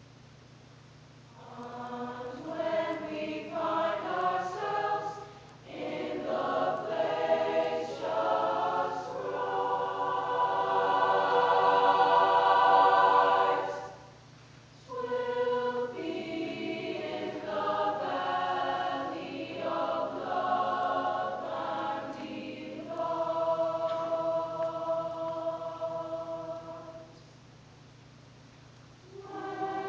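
Large mixed choir of boys and girls singing in phrases with short breaks between them, swelling to a loud held chord about ten seconds in.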